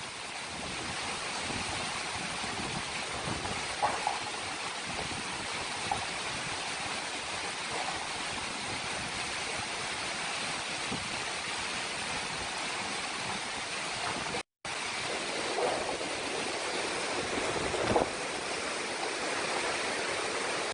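Cyclone storm noise: a steady rush of wind, rain and rough sea, with brief louder gusts about four seconds in and again near the end. The sound drops out for a split second about two-thirds of the way through.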